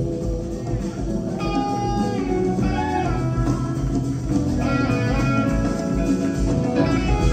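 Live rock band playing an instrumental passage, an electric guitar carrying held and bending lead notes over keyboards, bass and drums.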